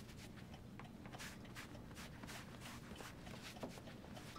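Quiet room tone with a few faint, soft taps and rustles scattered through it.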